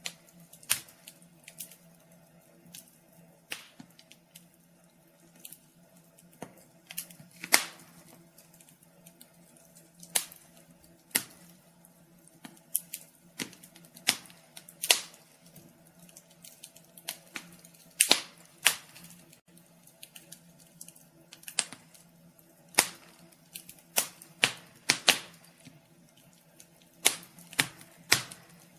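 Wood fire crackling, with irregular sharp pops and snaps of varying loudness, a few every second, over a faint steady low hum.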